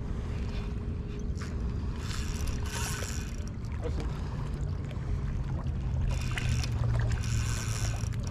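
Wind rumbling on the microphone by open water, with two short spells of hiss partway through. A low steady hum comes in about halfway and grows louder toward the end.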